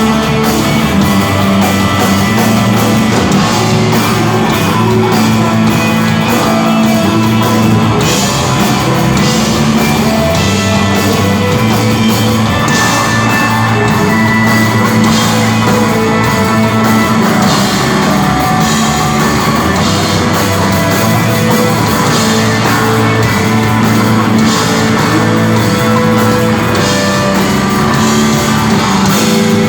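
Live rock band playing loud and steady: electric guitars, bass and drums, with cymbal hits standing out more from about eight seconds in.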